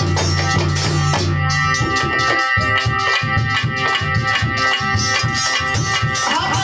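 Instrumental Alha folk music: a harmonium holds sustained chords while a hand drum plays a quick, even rhythm, which comes in about a second and a half in.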